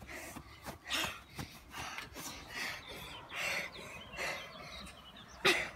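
A person breathing hard and out of breath after running a race, with quick, uneven breaths about one a second and one louder breath near the end.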